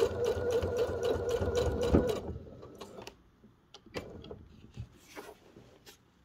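Domestic sewing machine running fast for free-motion quilting: a steady hum under rapid, even stitch clicks, stopping about two seconds in. After that come only faint rustles and taps as the quilt fabric is handled.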